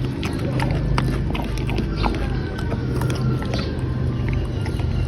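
Sounds from a golden retriever and her newborn puppies: scattered small clicks and brief faint squeaks over a steady low hum.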